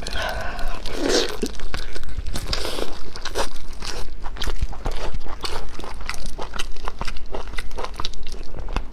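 Close-miked eating sounds: biting and chewing a large sausage, a dense run of quick sharp mouth clicks and smacks.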